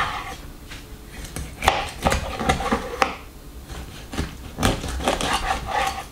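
A large kitchen knife chopping a whole pink salmon into steaks: the blade goes through the fish and knocks on a wooden cutting board several times at an irregular pace.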